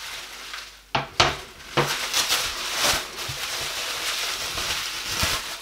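Bubble wrap rustling and crinkling as it is handled and pulled off a wooden panel, with a few sharp knocks about a second in.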